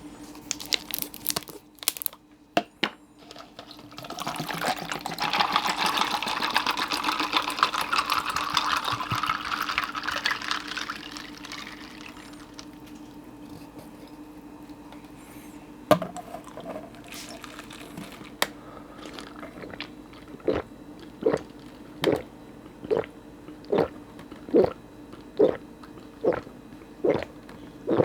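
A few clinks of ice against a glass, then iced corn tea pouring into the glass for about seven seconds. From about 20 seconds in come steady gulps, roughly one every 0.8 seconds, as the tea is swallowed.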